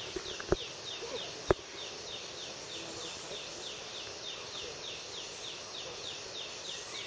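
Rainforest insects chirping steadily: a short falling chirp repeating about three times a second over a high, even hiss. Two sharp clicks come in the first two seconds, the second one the loudest sound.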